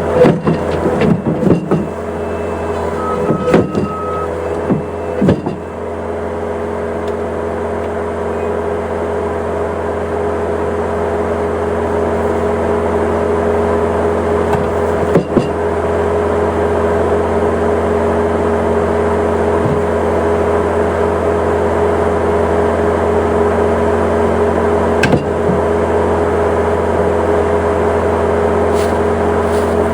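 An engine running steadily at a constant speed, with a few knocks and clanks in the first six seconds and once each about midway and near the end.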